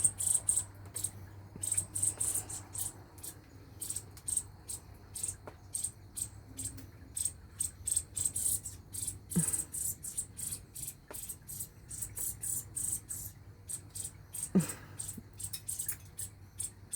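A fledgling bird's rapid, high-pitched begging chirps, several a second and irregular, calling to be fed by its parent.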